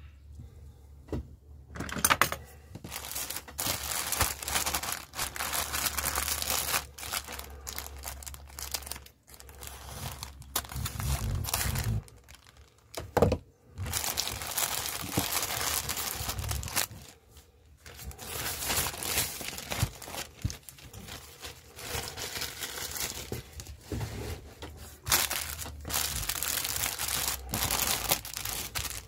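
Plastic packaging being unwrapped by hand: a black poly mailer bag torn open, then clear cellophane bags crinkling, in irregular bursts with short pauses. One sharp knock about thirteen seconds in.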